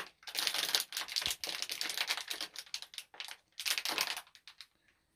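Plastic wrapping of a Pikmi Pops toy packet crinkling and crackling as it is pulled open by hand, a dense run of rustles that thins to a few quick clicks near the end.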